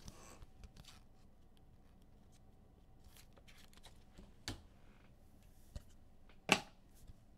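Trading cards being handled: faint rustling and sliding of cards, with two sharper clicks about four and a half and six and a half seconds in, the second the louder.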